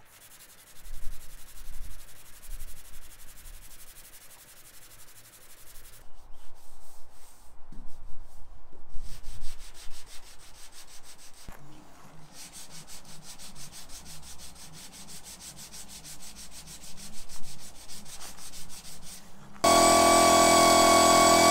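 Hand sanding of a painted car body panel with a sanding block: steady, rapid back-and-forth rubbing and scratching strokes. Near the end, a much louder steady droning tone cuts in abruptly.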